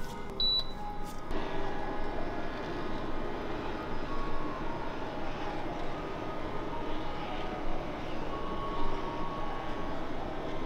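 An induction cooktop beeps briefly as its touch control is pressed, then starts heating with a steady whirring hum from about a second in. A silicone spatula stirs milk and corn in the pan over it.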